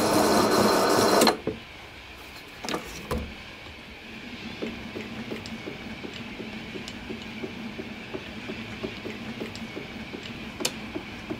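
Drilling machine motor running with a high whine, switched off about a second in. Then a faint, regular ticking about three times a second.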